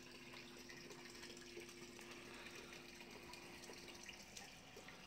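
Near silence: a faint steady hiss like running water, with a low two-note hum that stops about four seconds in.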